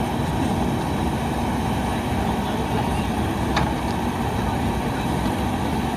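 Backhoe loader's diesel engine running steadily, with a light click about midway.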